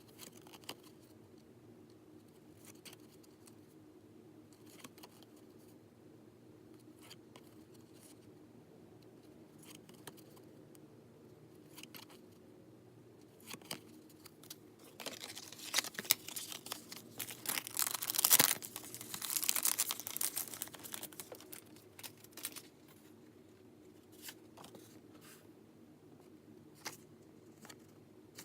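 Merch packaging being handled and opened: scattered small rustles and clicks, then about halfway through a loud stretch of tearing and crinkling lasting several seconds, tapering back to occasional rustles.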